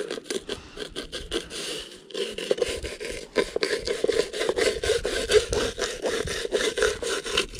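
Fillet knife sawing back and forth to skin a walleye fillet on a frying pan used as a cutting board: a rapid, irregular scraping and rasping of blade on skin and pan.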